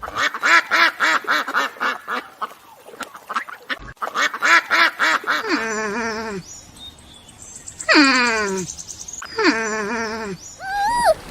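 Ducks quacking: quick runs of short quacks at about five a second, then several longer quacks that fall in pitch.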